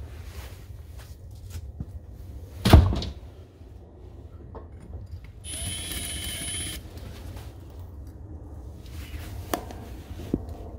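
RIDGID cordless hammer drill with a masonry bit run briefly, a steady motor whine of about a second that starts and stops sharply, a few seconds after a single loud thump. Two light clicks near the end over a low steady rumble.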